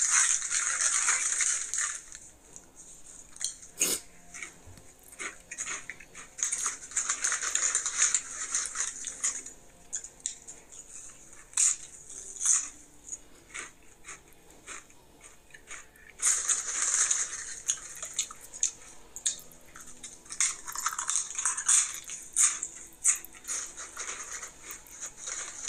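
A foil Doritos chip bag crinkling as it is opened and rummaged through, in several stretches. Between them come scattered sharp crunches from tortilla chips being bitten and chewed.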